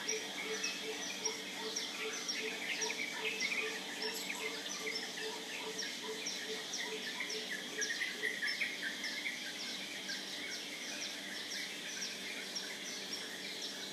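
Many birds chirping and calling at dawn, with a steady high insect drone under them. A low note repeats about two to three times a second and stops about halfway through.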